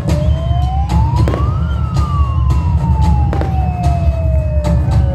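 Fireworks bang and crackle in short sharp cracks, while a single siren-like wail rises for about a second and a half and then slowly falls away over the next four seconds.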